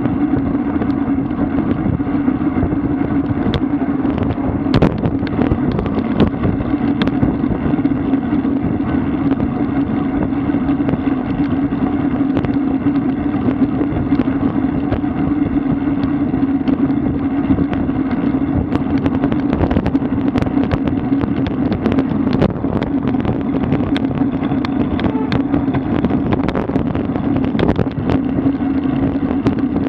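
Steady rush of wind and road noise picked up by a camera mounted on a road bike riding at about 35–40 km/h, with a constant low drone and scattered small clicks.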